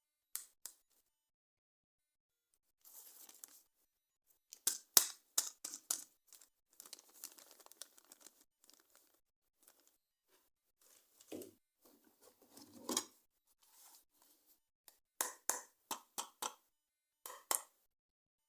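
Toy packaging being handled and opened: a string of sharp clicks and taps with short stretches of rustling and tearing, and brief pauses in between.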